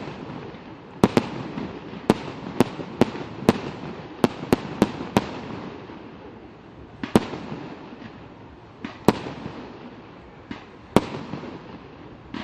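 Fireworks display, with shells bursting in sharp bangs. The bangs come in a quick run over the first five seconds, then more sparsely, with a steady rumble between them.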